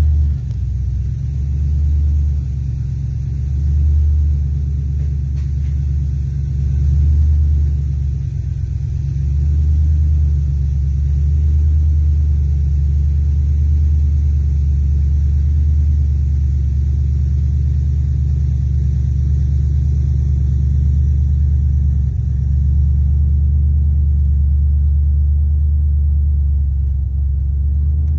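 Ford Mustang's 4.6-litre V8 running at low revs through long-tube headers, a deep, steady rumble heard from inside the cabin, swelling in level a few times. The engine was started only seconds before.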